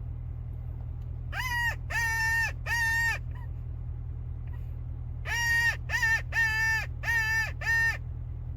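A bird cawing in two runs: three caws, a pause of about two seconds, then five more. A steady low hum runs underneath.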